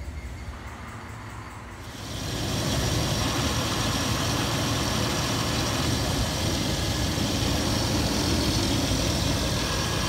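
Chevy 3500 truck engine idling steadily, growing sharply louder and fuller about two seconds in and then holding steady.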